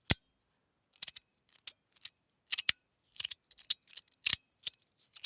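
Titanium tuning-fork fidget slider being slid back and forth, its plates snapping shut with about a dozen sharp metallic clicks at an uneven pace, some in quick pairs.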